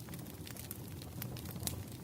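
Burning wood fire crackling: a steady run of sharp pops and snaps over a low rumble, with one louder pop near the end.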